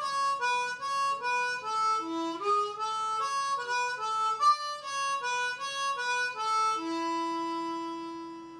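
Diatonic harmonica in A playing a quick note-by-note melody that walks down and back up, single notes in steady succession. It ends on a long held low note, the 3-hole blow, which fades away.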